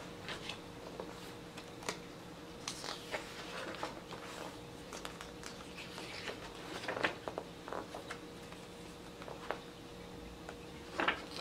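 Glossy pages of a softcover photo book being turned and handled by hand: quiet, scattered paper rustles and flicks.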